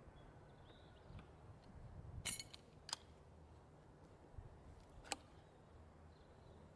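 Near silence with a faint low rumble, broken by a few faint sharp clicks: a small cluster about two seconds in, one near three seconds and one about five seconds in.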